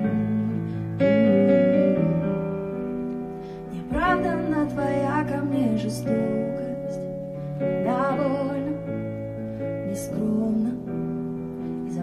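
Keyboard playing sustained chords as a slow song intro, with a woman's voice singing two wordless, wavering runs over it.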